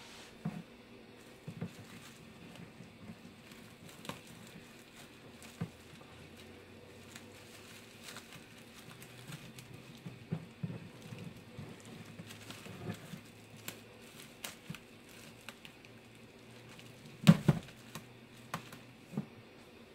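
Plastic bubble wrap crinkling, with light taps and clicks, as it is pressed down and taped at the corners. One louder crinkle comes near the end.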